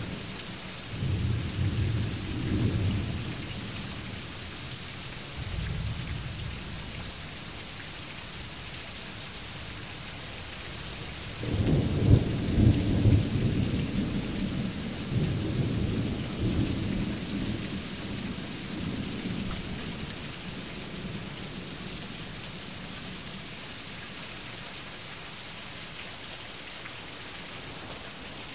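Thunderstorm: steady rain falling, with thunder rumbling low several times. A short rumble comes near the start, and a louder peal about twelve seconds in rumbles on for several seconds before fading back under the rain.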